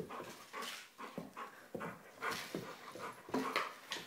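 A dog panting in short, irregular puffs while playing.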